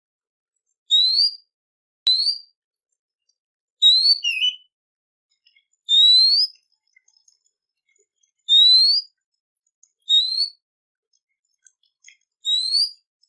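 A songbird calls with short, rising whistled notes. There are about seven of them, spaced one to two seconds apart, and some are followed at once by a quick, lower twisting note.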